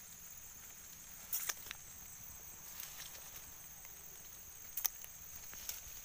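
A steady high-pitched insect drone, with a few short crackles of footsteps on dry palm fronds and grass about a second and a half in and twice near the end.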